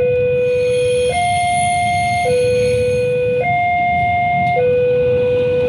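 Electronic two-tone hi-lo siren, steadily alternating between a lower and a higher tone about once a second, over a low rumble.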